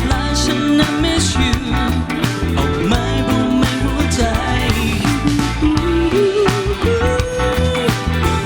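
Band music with guitar and drums, a melody line bending in pitch and holding one long note about seven seconds in.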